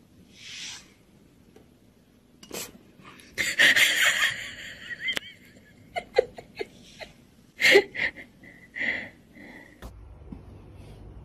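A person laughing in wheezy bursts, with a few sharp clicks and knocks in between.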